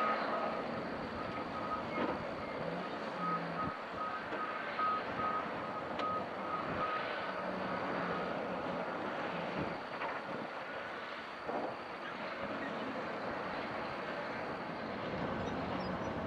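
A heavy-machinery reversing alarm beeping about twice a second, stopping about seven seconds in, over the steady running of a large crawler bulldozer working rock, with a few knocks.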